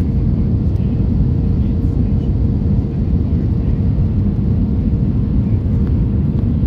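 Steady low rumble of an Airbus A320's engines and airflow heard inside the passenger cabin, with a constant hum running through it.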